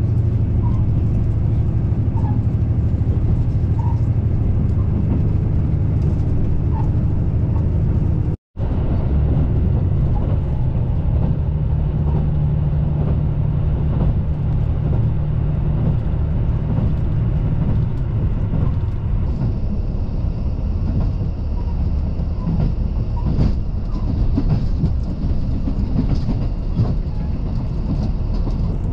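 JR Central KiHa 85 series diesel express train running on the line, heard from on board: a steady low diesel engine drone under rail and wheel noise. The sound cuts out for a split second about a third of the way in, and a thin high steady tone joins about two-thirds of the way through.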